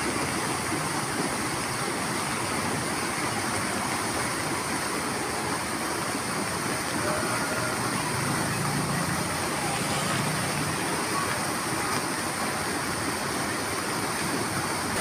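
Rain-swollen river or drain in full spate, its water rushing steadily, with a faint low hum for a few seconds in the middle.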